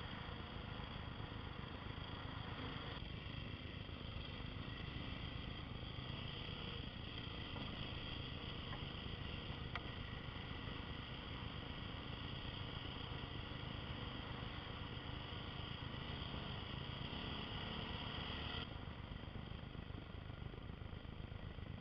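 Off-road motorcycle engine running at riding speed under a steady rush of wind noise on a helmet-mounted microphone. The sound shifts abruptly about three seconds in and again near the end.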